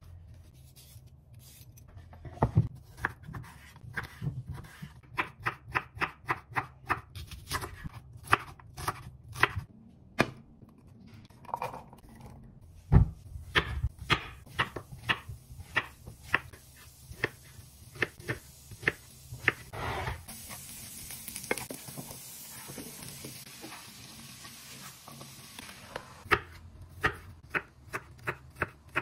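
Kitchen knife chopping vegetables on a wooden cutting board: sharp knocks of the blade on the board in quick runs, slicing zucchini and then mincing garlic.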